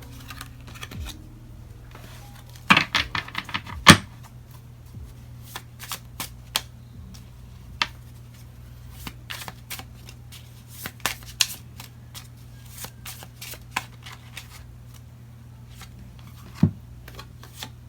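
Tarot cards being shuffled and handled: a quick run of card snaps about three seconds in, the loudest near four seconds, then scattered light clicks and flicks as cards are handled and laid down.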